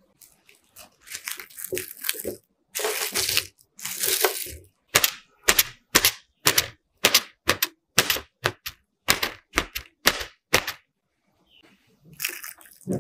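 Cling film over a dish crinkling and rustling, then a quick run of sharp little pops, two or three a second, as a wooden skewer pierces the taut film again and again. More crinkling of the film near the end.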